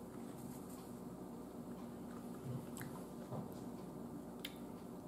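Faint mouth noises close to the microphone: a few soft clicks and smacks over a low steady room hum.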